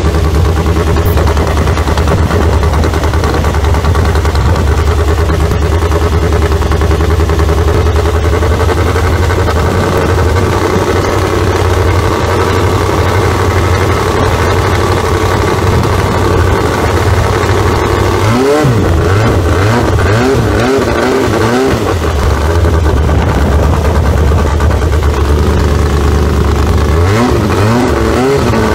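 Toyota K-series four-cylinder petrol engine of a longtail racing boat running hard under way, loud and steady. About two-thirds of the way through, the revs swing up and down quickly several times, and they rise again briefly near the end.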